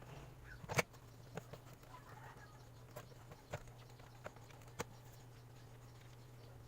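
About six sharp, light clicks and knocks, scattered and irregular, the loudest about a second in, over a faint steady low hum: small hard parts being handled.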